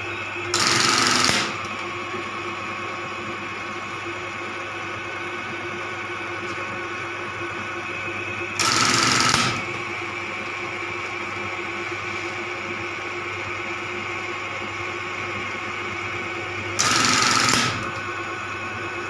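Lewis button-sewing machine test-running after a repair: its motor hums steadily, and three times, about eight seconds apart, it goes through a short clattering sewing cycle lasting under a second as a button is stitched on.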